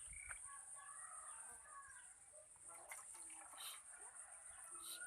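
Chickens clucking faintly, in short scattered calls over a steady high-pitched whine.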